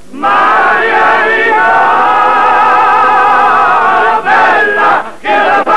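A group of men singing together in chorus, holding one long note with vibrato, then breaking into short chopped phrases about four seconds in.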